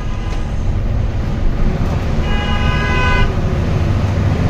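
Bus horn sounding one steady note for about a second, a little past the middle, over the low rumble of a running engine and traffic.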